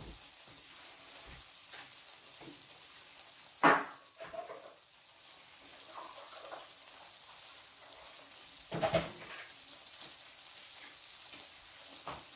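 Salmon fillets sizzling in butter in a frying pan, a steady hiss. It is broken by two loud knocks, about three and a half seconds in and again about nine seconds in.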